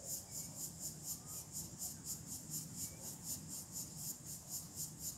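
Insects chirping in a steady pulsing rhythm, about four or five high pulses a second.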